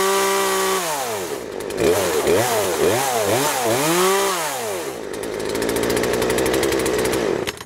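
Craftsman 40cc two-stroke chainsaw engine with its carburetor just adjusted, revved up and down in several quick throttle blips. It settles to a steady idle about five seconds in and cuts off at the very end.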